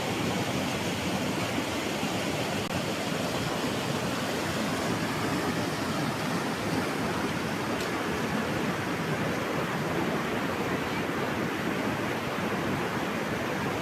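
Steady rush of water pouring down a small waterfall into a swimming hole, an even hiss without a break.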